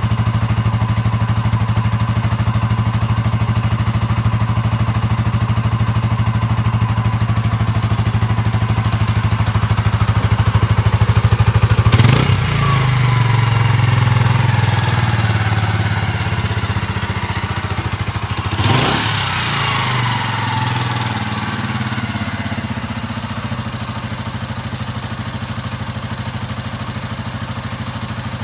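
Suzuki ST250E's 249 cc air-cooled single-cylinder engine idling steadily through its exhaust. It is blipped up twice, about twelve seconds in and again about seven seconds later, each time settling back to idle.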